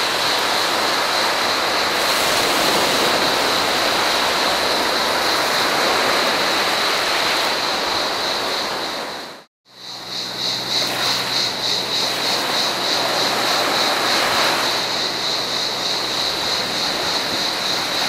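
Mediterranean surf washing over rocks and sand, with a steady high cicada buzz. The sound cuts out briefly a little past halfway. It resumes with waves breaking on sand, the cicada chorus now pulsing, and a low steady hum underneath.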